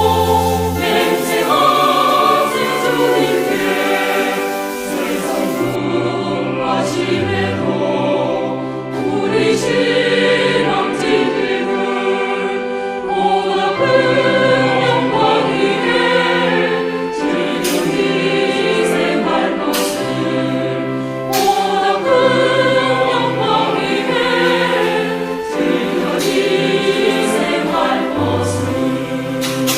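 Background music: a choir singing a slow, sacred-sounding piece in sustained chords.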